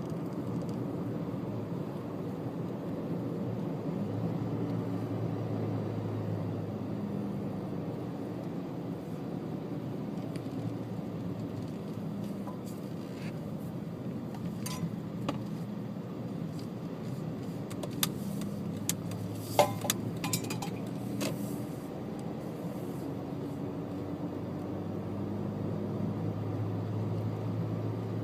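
Engine and road noise inside a moving car, a steady low hum whose pitch shifts a little with speed. A few sharp clicks or rattles come past the middle.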